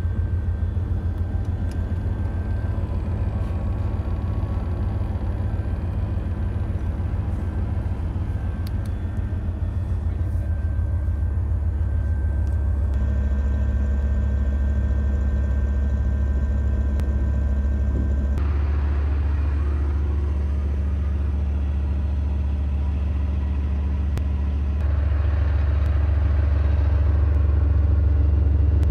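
Gepard self-propelled anti-aircraft gun's V10 multi-fuel diesel engine running, a steady low rumble with a faint steady whine above it, louder in the last few seconds.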